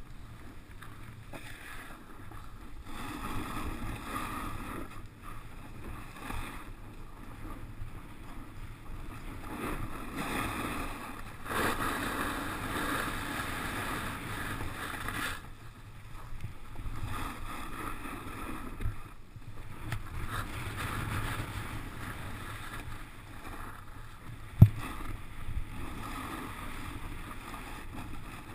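Snowboard sliding and scraping over packed snow, the hiss swelling and fading in long waves as the rider turns, mixed with wind noise. A single sharp knock comes about three-quarters of the way through.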